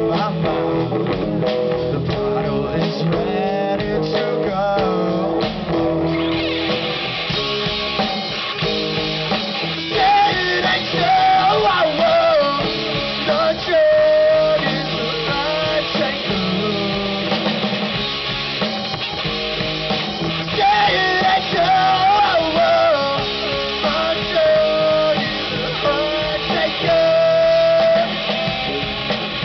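Live rock band playing: guitars with a singer. The band comes in fuller about six seconds in, and a sung melody runs from about ten seconds.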